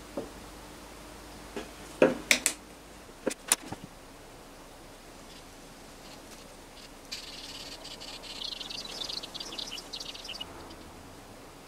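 A handful of sharp clicks and knocks as a small paint bottle and fine brush are picked up and handled, then a few seconds of fine, rapid scratching as the brush strokes and dabs dark paint into the carved grooves of a wooden board.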